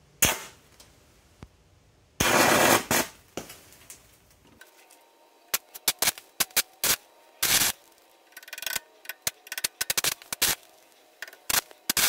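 Stick-welding arc from a welding rod held in a jumper-cable clamp, fed by three car batteries in series at about 38 volts, crackling and popping in short irregular bursts as the arc is struck and catches. There is a sharp crack just after the start and a longer, dense stretch of crackle about two seconds in.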